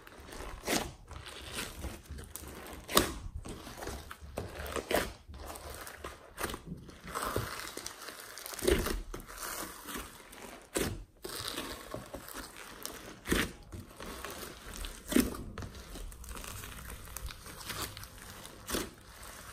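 Hands kneading and folding glossy slime mixed with soft clay and foam beads: irregular sticky clicks, pops and crackles a few times a second over a soft squishing rustle.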